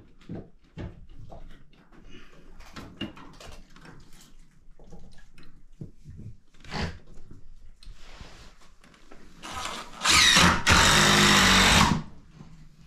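Scattered knocks and taps of work inside a wooden shed, then a power drill running hard for about two seconds near the end.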